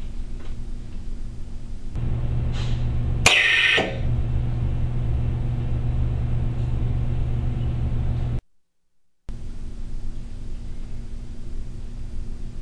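Clemex Powder Disperser running with a steady low hum from its vacuum pump. About three seconds in, a sharp half-second hiss of compressed air blasts the powder sample into the evacuated chamber once the vacuum reaches its target. The sound cuts out for under a second near the end.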